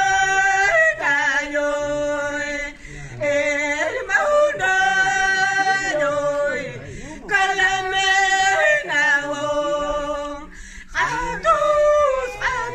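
Two women singing a warawi (harawi), the traditional Quechua song of the Andes, in high voices: long held notes, several sliding down at their ends, phrase after phrase with short breaks for breath.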